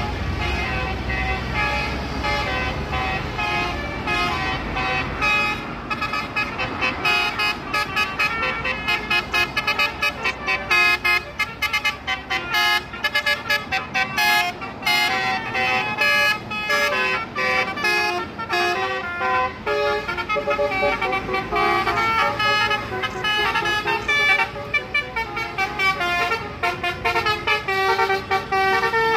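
Basuri V3 telolet multi-tone bus horn playing a fast tune of short, stepping honked notes. A low rumble runs underneath for the first few seconds.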